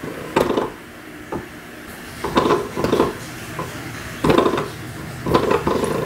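Spring door stopper on a baseboard being flicked by a baby's hand, its coiled spring twanging with a short ringing each time, about six times at irregular intervals.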